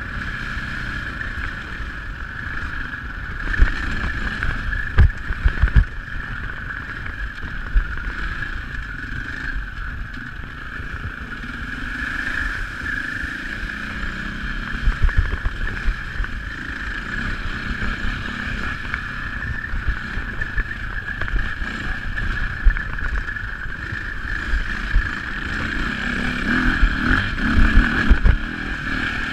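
KTM dirt bike engine running steadily under way, with the low rumble of the ride and a few sharp thumps from the bike over bumps.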